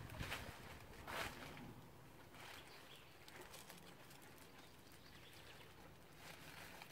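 Two brief rustles of dry leaves and a plastic carrier bag as someone stoops in leaf litter, in the first second or so, then a faint steady hiss.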